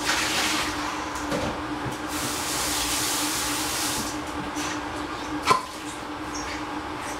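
Lidded stainless steel saucepan boiling on the stove: water bubbling and steam hissing in swells, over a steady low hum. A single sharp clink comes about five and a half seconds in.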